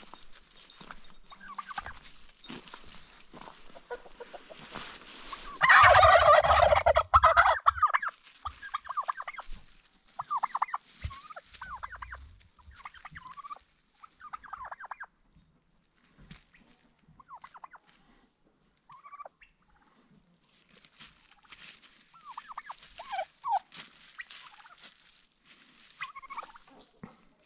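Domestic turkey toms gobbling again and again, with one loud, long gobble about six seconds in and shorter gobbles after it.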